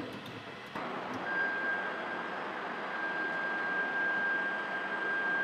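FABX XL 3D printer homing its X, Y and Z axes: its stepper motors drive the print head and bed to their home positions, a steady mechanical hiss starting about a second in with a steady high whine over it.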